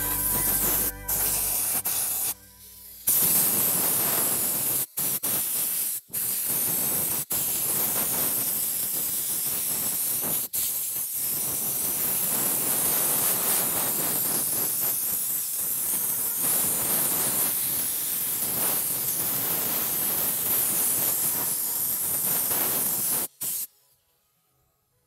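Spraying hiss in long continuous passes, broken by several brief stops, as from a spray nozzle being triggered on and off; it cuts off abruptly near the end.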